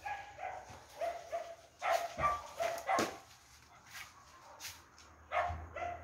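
A dog barking in quick runs of short barks, pausing in the middle and barking again near the end.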